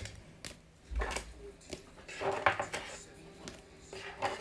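Rigid plastic trading-card top loaders clicking and rattling against each other and the display stand as they are picked up by hand and stacked, with a dull bump about a second in.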